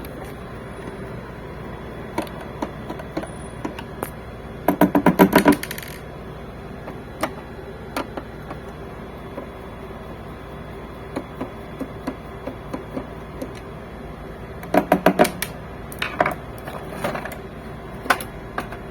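Screwdriver taking out the two front screws of a printer's plastic casing: two quick runs of rapid clicking about ten seconds apart, with scattered small clicks and taps between.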